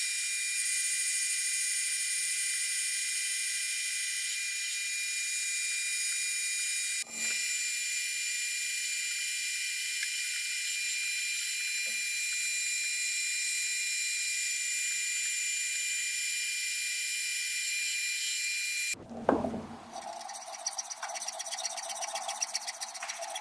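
Small metal lathe running with a steady high whine and hiss while machining solid brass bar. It changes abruptly twice; after a sharp knock near the end, the running turns rougher and lower.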